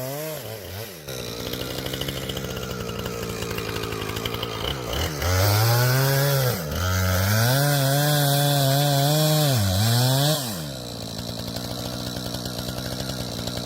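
Chainsaw engine running and being throttled up and down. It revs high about five seconds in, dips briefly, runs high again, then drops back to lower revs near the end.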